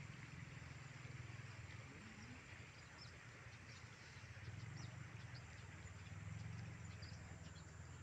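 Quiet rural ambience: a low steady rumble that swells a little now and then, with faint, scattered high chirps.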